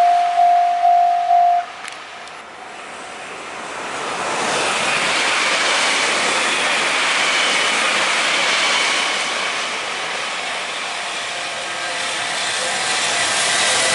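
Level-crossing warning bell ringing about twice a second, stopping about one and a half seconds in. Then a train approaches and passes: a loud, steady rush of wheels on rail that builds over a couple of seconds, with a faint high whine over it.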